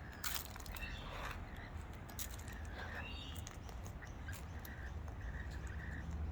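Faint wild bird calls, short scattered calls with a sharp burst about a third of a second in, over a steady low background rumble.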